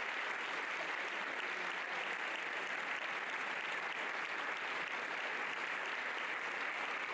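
Large audience applauding, a steady, even clapping that holds at the same level.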